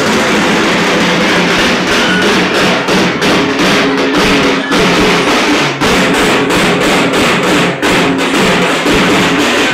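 Dhol and dhak drums beaten loud and fast in a dense, driving rhythm for a Chhau dance, the separate strokes standing out more sharply from about five seconds in.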